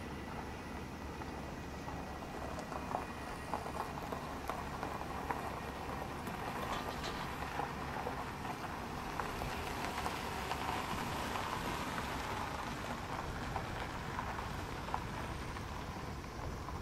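Steady rushing of an F-4 Phantom's twin J79 jet engines as the jet rolls out and taxis after landing, swelling slightly midway, with scattered light ticks.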